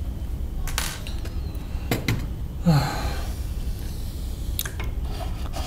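Scattered clicks and light knocks of plastic and metal 3D-printer parts being handled and fitted on a workbench, with a louder brief scraping sound about halfway through, over a steady low room hum.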